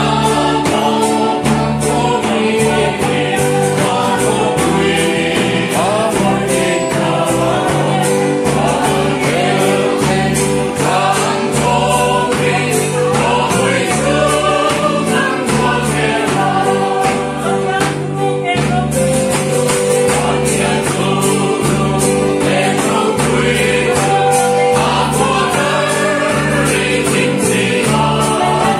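A small group singing a Mizo hymn together in unison, accompanied by an electronic keyboard holding steady bass notes, with hand-clapping on a steady beat.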